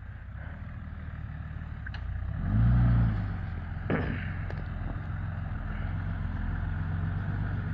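A 4WD ute's engine running at low revs as it crawls over rocks, with a short burst of throttle about two and a half seconds in. A few short knocks or scrapes come near the two- and four-second marks.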